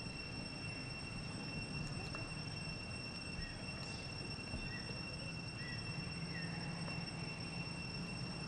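Steady high-pitched insect drone outdoors, with a few faint short chirps a couple of seconds in.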